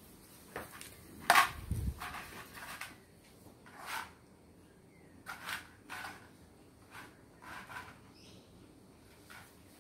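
Cardboard tube treat dispenser being pawed and nosed about on a tile floor by cats: a string of short scuffs and knocks, the loudest a deep thump about a second in.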